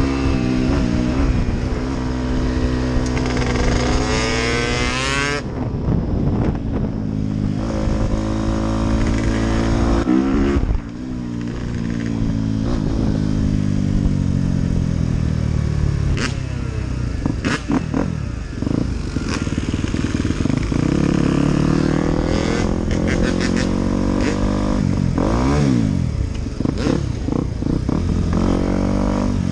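Dirt bike engine under way, revving up and easing off with the throttle: the pitch climbs over the first five seconds, drops sharply, climbs again and drops near ten seconds in, then keeps rising and falling as the bike accelerates and slows.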